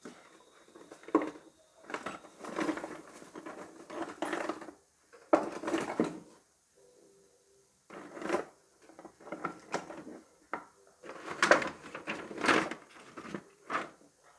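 Irregular clatter and scraping of hard objects being handled, like tools and hard plastic knocked and slid about on a workbench, in short bursts about once a second with a brief lull midway.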